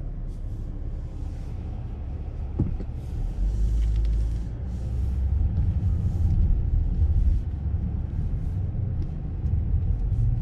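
Car driving, a steady low rumble of engine and tyres that grows louder for a few seconds in the middle.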